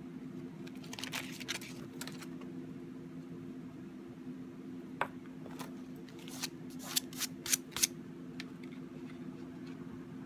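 Embossing powder being worked on a sketchbook page: a short rustle about a second in, then a run of sharp taps and clicks between about five and eight seconds in, over a steady low hum.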